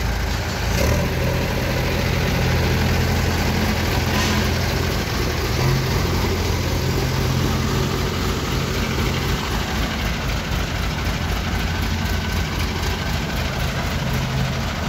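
Diesel engine of a pick-and-carry mobile crane running steadily at idle.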